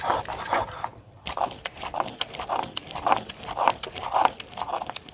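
Stone roller rubbed back and forth over a flat sil grinding stone, crushing tomatoes, coriander, chillies and garlic into a wet chutney: rhythmic scraping at about two to three strokes a second, with a brief pause about a second in. Bangles on the wrists jingle with the strokes.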